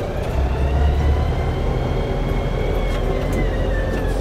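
Montana 5740 tractor's diesel engine running steadily, heard from the operator's seat, with a faint high whine over the low rumble.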